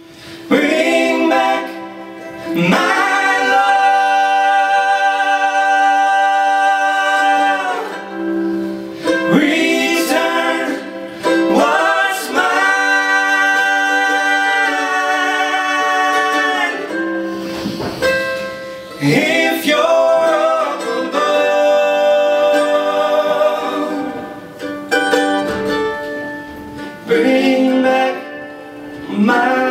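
Three male voices singing in close harmony, holding long chords in phrases several seconds long with short breaks between, over acoustic guitar.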